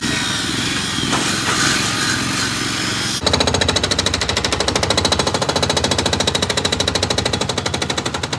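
Concrete demolition. For the first few seconds there is rough, irregular crunching and grinding of rubble. About three seconds in, a breaker hammer starts pounding concrete in a rapid, steady stream of blows that keeps going.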